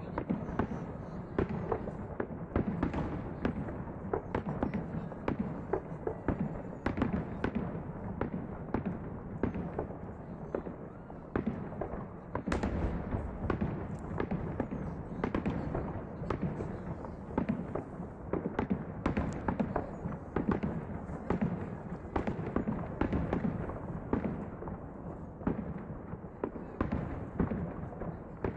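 Aerial fireworks shells bursting: a dense, continuous barrage of sharp bangs, several a second, over a steady low rumble.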